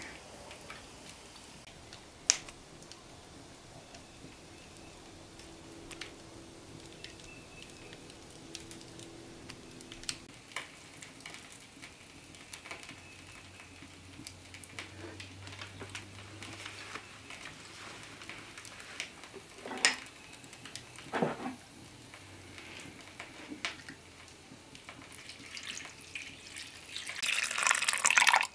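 Cooked chicken being pulled apart by hand into a ceramic bowl: soft handling noises with scattered sharp clicks and taps. Near the end, a louder splashing rush as chicken broth is poured from a cup onto the shredded chicken.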